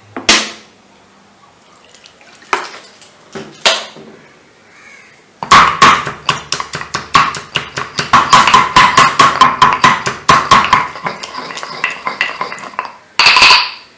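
Pestle pounding fresh turmeric with a little water in a mortar. A few single knocks come first, then a run of rapid strokes, several a second, with a ringing note, starting about five seconds in and lasting about six seconds, and one last short burst near the end.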